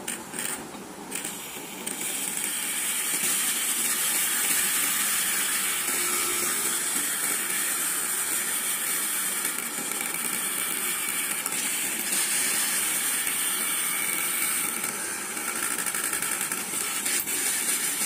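Small 775 DC motor spinning at high speed with a drill bit on its shaft, boring holes into a white board: a steady, hissy high whine. A few short bursts come in the first two seconds before it settles into running steadily.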